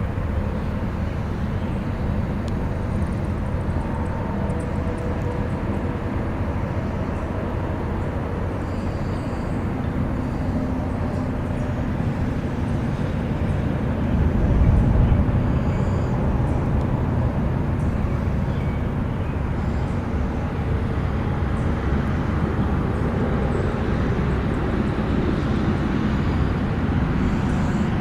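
Steady rumble of interstate highway traffic, with one vehicle passing louder about halfway through.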